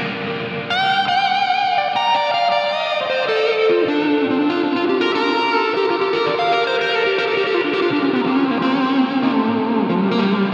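Electric guitar played through a Line 6 Pod Go modelling a Marshall Plexi amp with Searchlights reverb and delay: sustained, lightly overdriven lead notes with vibrato and bends, trailing into reverb and echoes.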